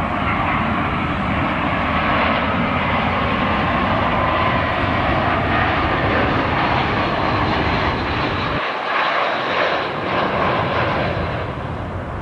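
Airbus A320-family airliner's twin jet engines on final approach, gear down, passing close: a loud, steady rush with a high whine that slides slowly in pitch, easing off in the last second or so.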